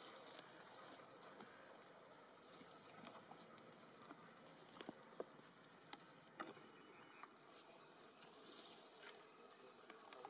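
Near silence: faint outdoor ambience, with a few brief clusters of high chirps and a scattering of light ticks.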